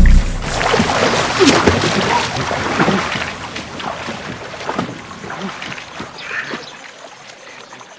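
Water splashing and sloshing as a person struggles in a river beside a dugout canoe and is grabbed from it. Loudest at the start, fading steadily over the following seconds.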